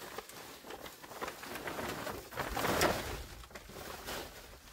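Plastic tarp rustling and crinkling as it is tugged and gathered by hand, in several swells, loudest just past the middle.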